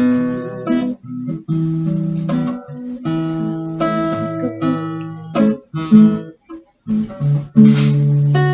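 Guitar strummed in held chords that break off and start again several times, ending abruptly: halting practice playing.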